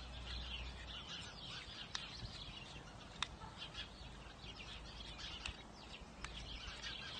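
Small birds chirping and twittering steadily in the background, with a few sharp ticks scattered through.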